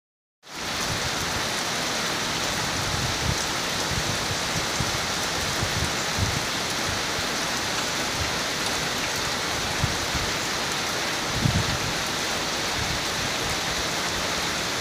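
Steady rain falling on grass, gravel and puddles: an even hiss, with a few brief low bumps around 3, 6 and 11 seconds in.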